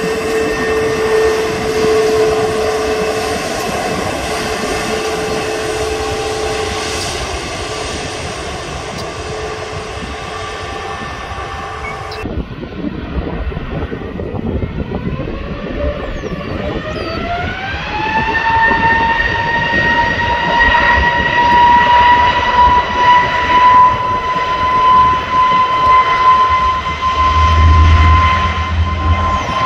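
Jet airliner engines: a steady whine with several tones that drifts slowly down, then breaks off abruptly. After that the engines spool up, a rising whine that levels off into a loud, steady high tone as they reach takeoff power, with a deep rumble near the end.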